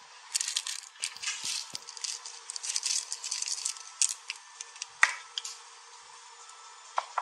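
Tiny polymer-clay fruit slices crackling and pattering as they are tipped into clear slime in a glass bowl, followed by a few soft sticky clicks as fingers press them into the slime.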